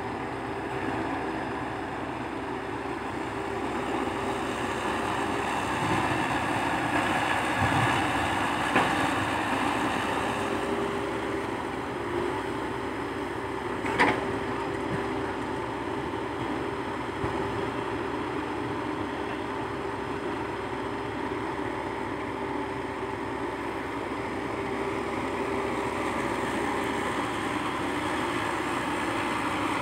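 Komatsu PC120-5 hydraulic excavator's diesel engine running steadily under load as it digs and swings, with a steady hum over the engine noise. A couple of sharp knocks stand out, the loudest about halfway through.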